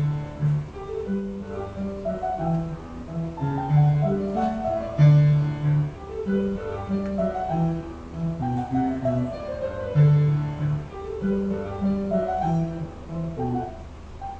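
Instrumental music: a melody of held notes over a moving bass line, with piano-like and string-like tones.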